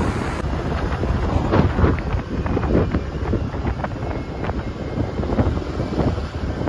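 Wind buffeting the microphone in irregular gusts on a moving motorbike or scooter, over a steady low rumble from the ride.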